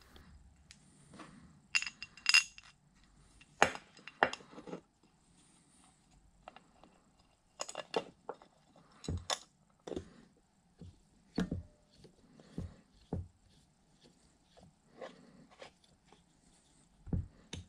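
Metal parts of a Bridgeport power feed and hand tools clinking and tapping as they are handled and fitted together, a series of separate clicks and knocks, with a couple of ringing clinks about two seconds in.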